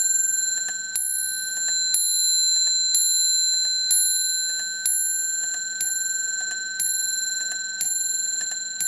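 Restored Brocot French clock movement striking the hour: a hammer strikes about once a second, nine ringing strokes in all, each left to ring and die away. The movement ticks faintly between the strokes, running again after its restoration.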